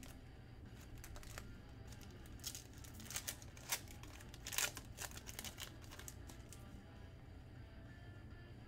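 Faint crinkling and rustling of trading-card pack wrappers and cards being handled: a scatter of short crackles and scrapes over the first five seconds or so, then only a low steady hum.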